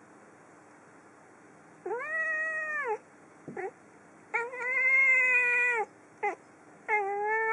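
Domestic calico cat meowing: three long, drawn-out meows with two short chirp-like calls between them, the last meow starting near the end.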